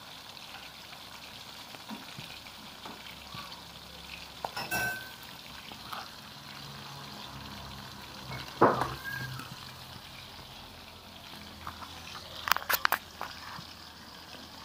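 Food sizzling as it fries in hot oil, a steady hiss, broken by sharp knocks: one about five seconds in, a louder one near the middle, and a quick run of three or four near the end.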